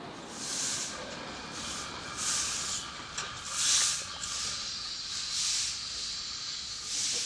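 Large twig broom sweeping stone paving: about six scratchy swishing strokes, unevenly spaced, the loudest a little under four seconds in.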